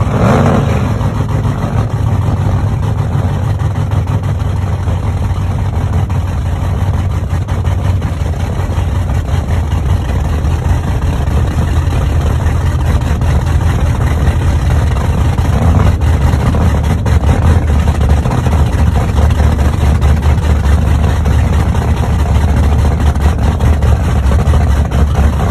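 Large engine running steadily with a loud, low pulsing rumble.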